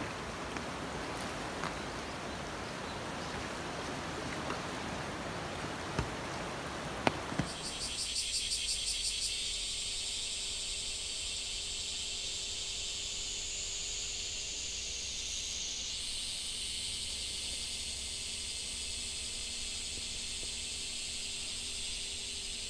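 Steady rushing water noise of the flood with a few sharp knocks, then an abrupt change about eight seconds in to a high, steady chorus of summer insects over a faint low hum.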